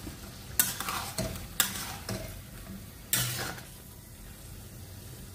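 A spatula stirring and scraping chicken pieces through thick masala gravy in a metal kadhai, about five strokes in the first three and a half seconds, then a quieter stretch. A low sizzle from the pan runs underneath, with a little water just mixed into the frying masala.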